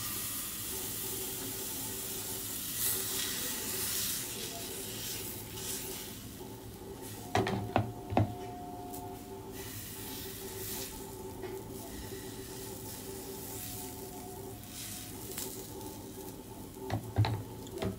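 Patishapta batter sizzling in a nonstick frying pan over a faint steady hum, with a few sharp clinks of a metal ladle against the pan about halfway through and again near the end.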